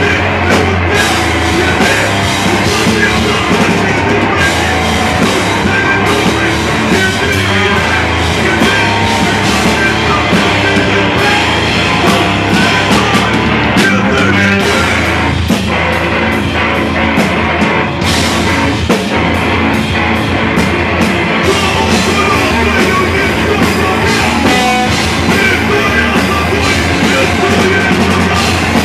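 Live rock band playing loud and without a break: electric guitars and a drum kit, with a vocalist singing into the microphone.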